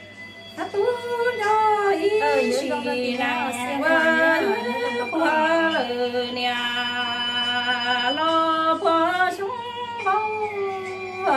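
A woman singing Hmong kwv txhiaj unaccompanied: one voice holding long notes with a wavering vibrato and sliding between pitches, after a brief breath at the start.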